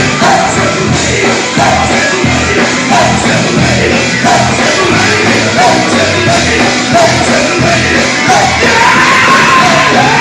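Live gospel group singing loudly over full band accompaniment, the lead voice shouting out lines. Near the end one voice holds a long high note.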